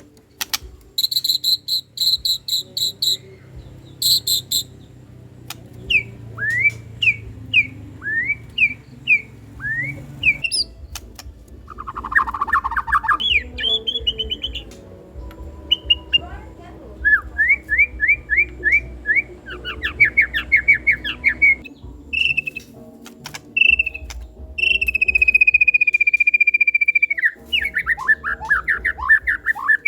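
White-rumped shama (murai batu) singing a fast, varied song of fierce 'tembakan' rapid-fire phrases: strings of buzzy repeated notes, upward-sweeping whistles, quick trills, and one long held whistle of about three seconds near the end.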